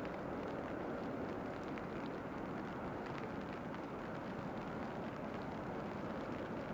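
Steady wash of distant city traffic in the rain, with faint scattered ticks of raindrops.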